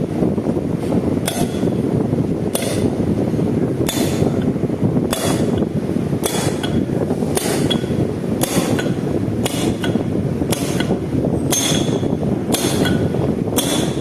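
A hammer striking metal about once a second, about a dozen sharp ringing blows, over a steady low background noise.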